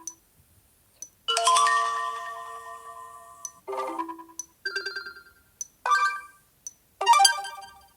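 Sony Xperia phone notification tones previewed one after another: five short electronic chimes, each a different pattern of notes, the first ringing on for about two seconds. There are faint clicks between some of them.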